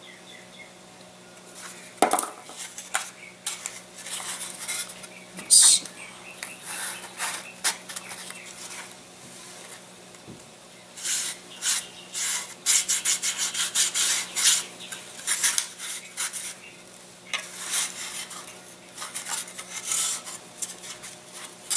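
Thin laser-cut balsa and plywood model-aircraft parts being handled, clicking and clattering against each other and the tabletop, with a few sharper knocks and a dense run of light clicks about halfway through.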